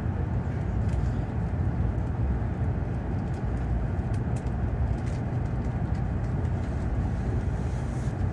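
Tokaido Shinkansen train running, heard from inside the passenger cabin as a steady low rumble, with a few faint ticks over it.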